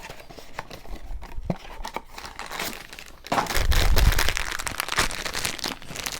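A Funko Mystery Minis blind box being handled and torn open: a few light clicks and rustles, then from about three seconds in a louder, continuous crinkling and tearing of the packaging.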